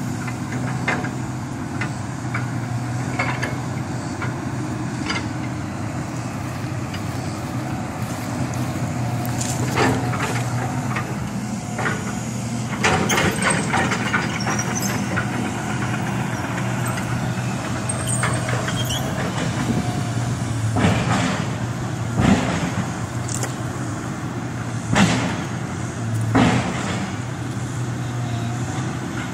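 Large demolition excavator's diesel engine running steadily, with scattered cracks and crashes of a building's structure being broken apart and falling. Several louder crashes come in the second half.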